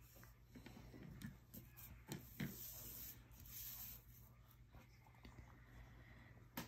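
Faint handling of a drawing sheet: light pencil-on-paper scratching and a few soft knocks. A little past halfway the sheet of paper is slid across the table with a brief hiss.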